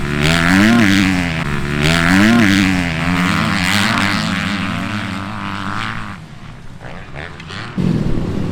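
Motocross bike engine revving hard, its pitch rising and falling twice with the throttle as the bike races on the track, then running on steadily and fading. Near the end it cuts to a different, steady background.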